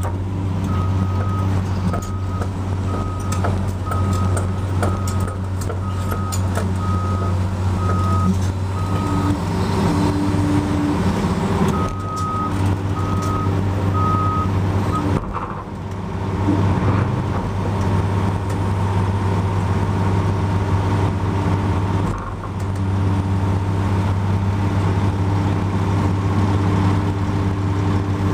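Cat 345D L excavator's diesel engine running steadily under load, heard from inside its cab, with the note dipping briefly twice as the boom lifts and pushes an overturned articulated dump truck. A reversing alarm beeps at an even pace for the first several seconds and again for a few seconds in the middle.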